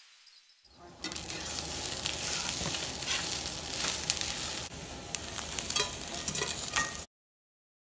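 Chopped chicken sizzling in a hot frying pan while a spatula stirs and scrapes it, with repeated clicks and scrapes of the utensil against the pan. The sizzle starts about a second in and cuts off suddenly near the end.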